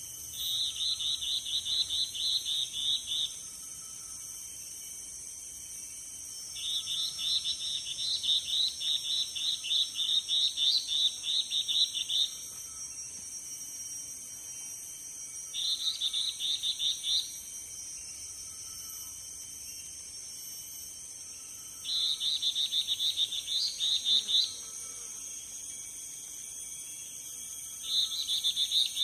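Yellow-bellied bulbul calling in five bouts of rapidly repeated notes, several a second, with pauses of a few seconds between bouts. A steady high-pitched hiss runs underneath.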